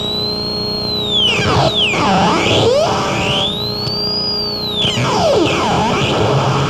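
Electronic noise music played live: a whistling tone sweeps up high and back down in slow arcs, twice, over a dense wall of noise and a steady low drone.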